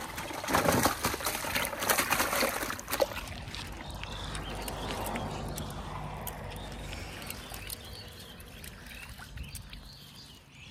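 Rustling and scuffing as a person walks over grass carrying a plastic tub, loudest in the first three seconds, then a quieter low steady outdoor background with a few faint high chirps near the end.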